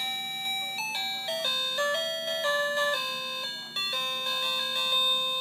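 Tinny electronic melody of plain, stepped notes from the motion-activated novelty cat fountain's music chip, with a brief break between phrases near the four-second mark.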